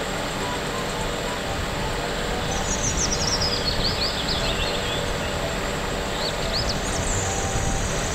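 Van-mounted aerial work platform (boom lift) running steadily as its boom swings the basket out, a continuous low rumble. Small birds chirp from about two and a half seconds in and again near the end.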